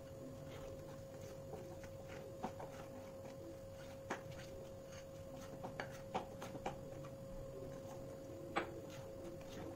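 Metal spoon stirring thick cake batter in a glass bowl, with light, irregular clinks of the spoon against the glass. A steady faint hum runs underneath.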